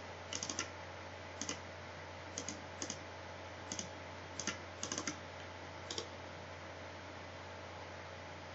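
Computer keyboard keys being tapped in an uneven run of about a dozen light clicks, some in quick pairs and threes, stopping about six seconds in. A steady low electrical hum runs underneath.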